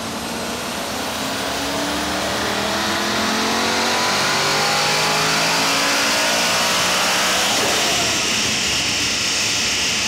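Audi RS6's 4.0 TFSI V8, converted to a single Garrett G42-1200 turbo, on a full-throttle chassis-dyno pull at about 2.2 bar boost, engine note rising steadily in pitch with a thin high whistle rising alongside it. Near the end the throttle closes and the revs fall away.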